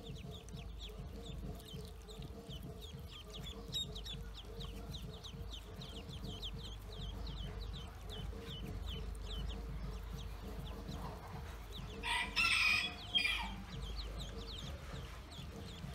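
Ducklings peeping steadily, a fast, continuous run of short, high, falling peeps. About twelve seconds in, a louder, lower bird call cuts in for just over a second, in two parts.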